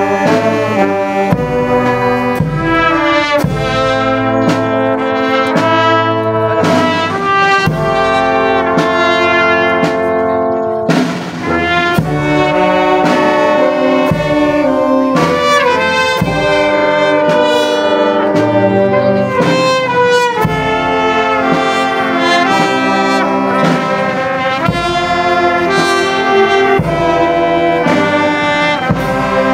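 Brass band playing a tune loudly at close range, trombones and saxophones to the fore, with a brief break about eleven seconds in.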